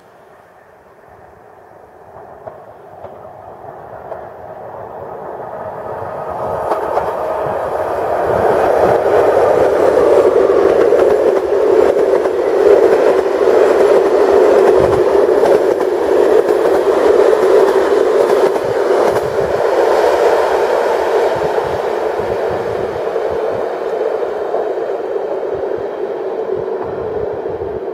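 Electric locomotive-hauled passenger train passing on the rails: the rolling noise of its wheels grows over the first several seconds, stays loud with scattered clacks while the coaches roll by, then slowly fades as it pulls away.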